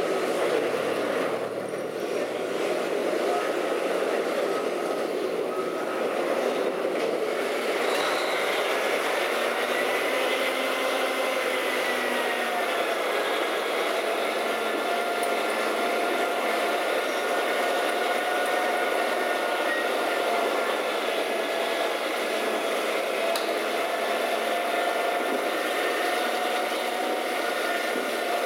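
Western Star roll-off truck running its diesel engine and hydraulic hoist to pull a loaded roll-off dumpster up onto its tilted bed: a steady mechanical rumble, with a whine that sets in about eight seconds in.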